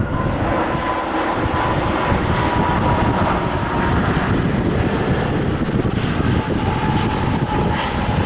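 Jet airliner engines running, a loud, steady jet noise with a thin whine that drifts slightly lower in pitch.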